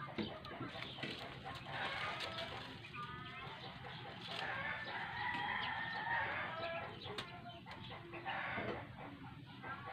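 A rooster crowing, one drawn-out call starting about three seconds in and lasting a few seconds.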